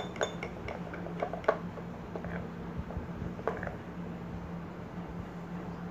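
A metal spoon stirring melted chocolate in a glass bowl, with a few light clicks against the glass in the first second and a half and once more a little past the middle, over a steady low hum.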